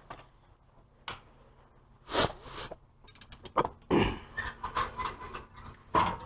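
A few separate knocks and clinks of metal hand tools being handled and set down, with a louder clatter about four seconds in, as if someone is sorting through tools for another one.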